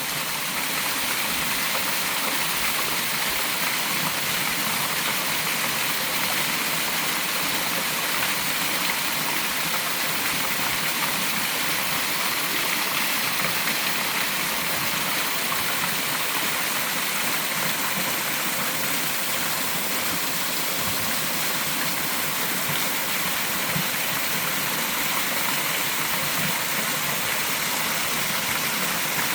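A mountain stream's small waterfall, water pouring and splashing steadily as an even rushing hiss.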